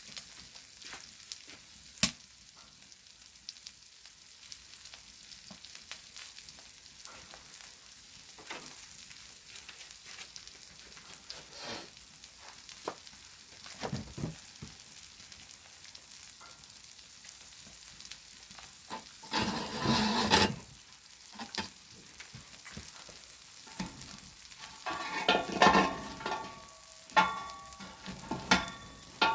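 Pork belly and gopchang sizzling steadily on a flat stone slab set over a wood fire, with scattered sharp pops. A louder burst of handling noise about two-thirds of the way through, and a run of louder clatters near the end.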